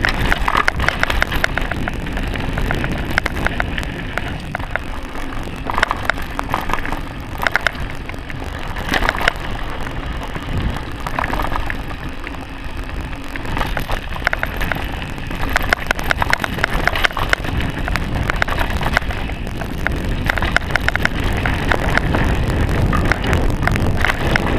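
Mountain bike rolling fast down a dirt trail: a steady rumble of tyres and wind on the microphone, broken by frequent short clattering rattles as the bike goes over bumps.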